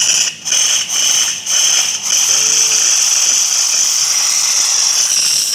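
Steam wand of a Getra SN-3035S semi-automatic espresso machine releasing steam: a loud hiss that starts suddenly, sputters a few times in the first two seconds, then runs steady.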